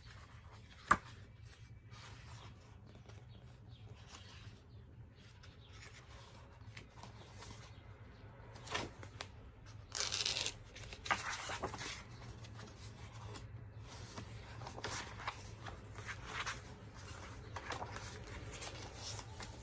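Pages of a thick, stiff-papered album booklet being turned and handled: repeated paper rustles and flaps, with a sharp click about a second in and a louder page flip about ten seconds in, over a faint low hum.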